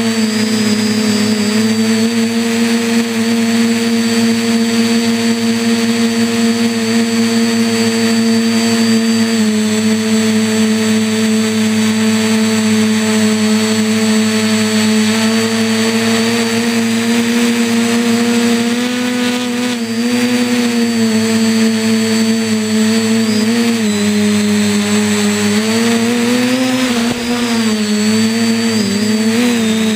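RC quadcopter's motors and propellers humming steadily, heard close from a camera mounted on the craft. Near the end the pitch wavers up and down as the throttle changes.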